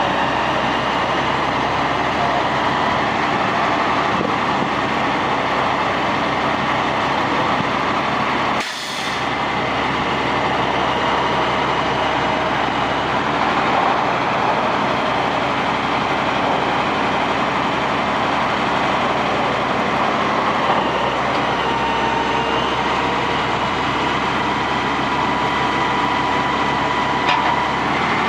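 Truck engine running to power the hydraulics of a Petersen Lightning Loader knuckle-boom grapple loader while the boom and clamshell grapple are swung and worked. A steady drone with a whine whose pitch shifts in the second half.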